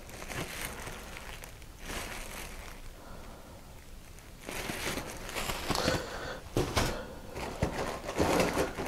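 Plastic wrapping crinkling and rustling as shrink-wrapped plastic model sprues are handled in a cardboard box, quieter at first and louder from about halfway through.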